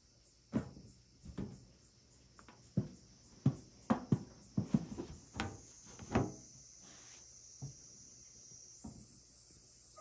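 About a dozen irregular knocks and clacks spread over the first seven seconds or so, over a steady high insect chirring that stops shortly before the end.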